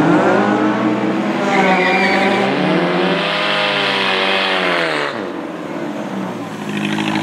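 Drag-racing car engines under hard acceleration down the strip: the engine note climbs in pitch, then falls away and fades about five seconds in, with a brief high squeal about two seconds in. Near the end a steady engine note grows louder again.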